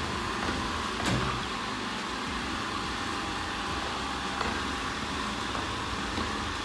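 Ecovacs Deebot N79W robot vacuum running in auto cleaning mode: a steady whir of its suction fan and brushes, with one sharp click about a second in.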